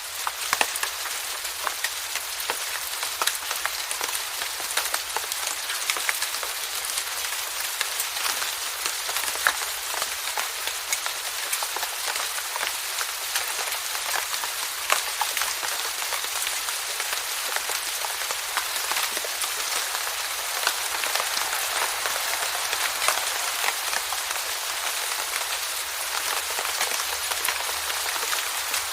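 Steady rainfall: an even hiss dotted with many sharp, distinct drop ticks.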